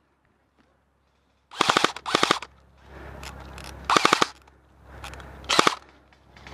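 Airsoft gun firing on full auto: four short bursts of rapid clacking shots, two close together about a second and a half in, then one near four seconds and one near five and a half.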